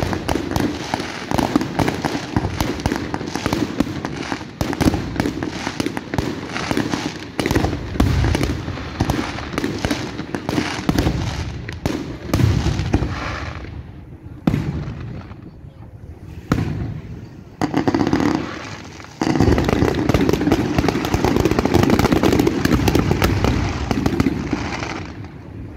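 Fireworks display: a rapid run of aerial shell bursts, bangs and crackling, thinning to a few separate bangs about halfway through before a dense barrage starts up again.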